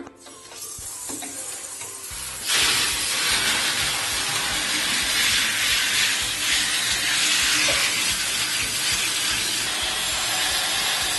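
Shower head spraying water over an air conditioner's access panel to rinse it: a steady hissing rush that comes up to full strength about two and a half seconds in.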